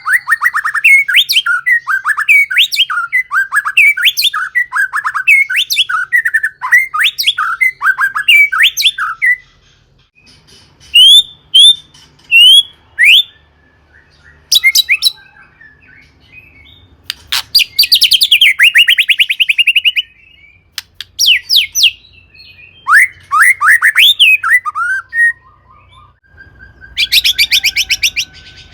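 White-rumped shama (murai batu) singing: a fast, continuous run of varied whistled notes for about the first nine seconds, then shorter separate phrases with pauses between them. A rapid rattling trill comes near the middle and another near the end.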